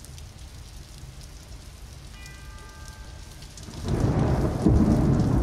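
Rain and thunder: a steady patter, a brief ringing chime about two seconds in, then a deep rumble of thunder breaking loudly just before the four-second mark.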